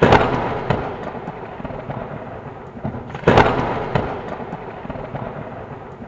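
Two heavy booming impact sound effects about three seconds apart, each followed by a crackling rumble that slowly fades.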